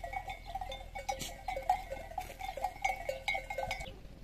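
Livestock neck bells clinking in an irregular jangle of short ringing notes at a few fixed pitches, cutting off suddenly near the end.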